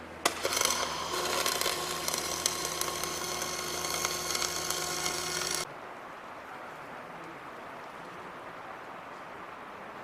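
Electric welding arc struck with a sharp crack, then burning with a steady crackling buzz for about five seconds before it cuts off suddenly as the bead stops. A low machine hum runs under the arc and stops with it.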